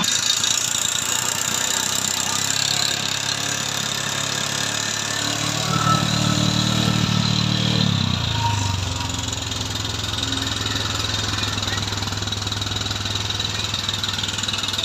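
Bajaj Discover 150's single-cylinder engine running with an abnormal mechanical noise, which the mechanic traces to a rocker arm rubbing and a worn bearing. Its revs rise slightly about five seconds in and drop back to a steady idle about three seconds later.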